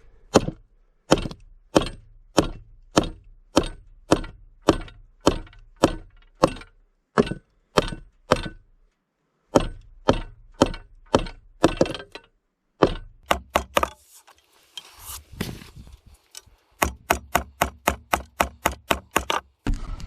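A run of sharp knocks, about two a second. After a short break they come quicker, around four a second, near the end.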